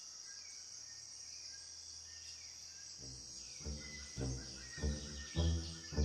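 Rainforest ambience: a steady high-pitched insect hiss with a few faint bird chirps. About three seconds in, soundtrack music comes in as a pulsing rhythm of low pitched notes, roughly two a second.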